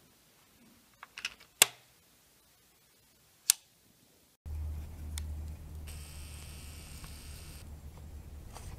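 Sharp metal clicks as the loaded FX rotary magazine is pushed into the FX Streamline air rifle's breech: a quick cluster about a second in, then one more click. After a cut about halfway through, a steady low rumble of wind on the microphone takes over.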